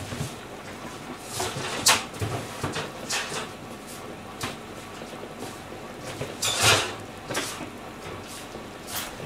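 Scattered knocks and clatters of kitchen handling, the loudest a short rattling clatter about two-thirds of the way in. Underneath is a steady low background from the pot of daikon and carrots at the boil on the gas stove.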